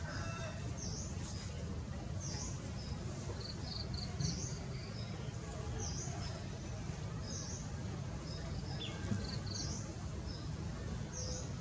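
Repeated high-pitched bird calls: a short dipping-then-rising note about once a second, with small clusters of quick higher notes between, over a steady low rumble.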